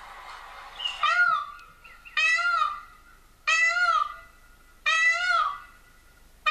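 Peacock calling: a series of loud, high wailing calls, each rising then falling in pitch, about one every 1.3 seconds, four in full and a fifth starting near the end.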